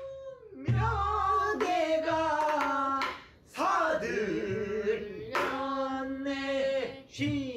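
Pansori singing: long drawn-out sung phrases with wavering, bending pitch. A buk barrel drum keeps time beneath them, with a stroke about a second in and another near the end.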